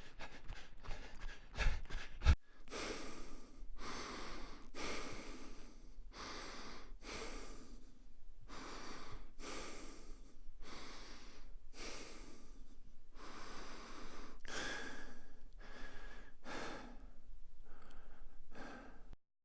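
Heavy, rapid breathing: a long run of loud in-and-out breaths at about one to two a second, which stops just before the end. It is preceded by a quick patter of clicks or taps, ending in a sharp knock about two seconds in.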